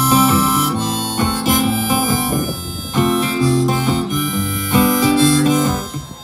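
Harmonica playing long held notes over strummed acoustic guitar, an instrumental break after the sung verse.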